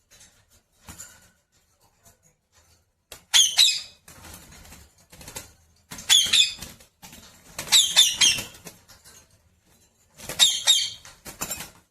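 Pet parrot giving four loud, short screeching calls a couple of seconds apart, with quieter scratchy rustling between them.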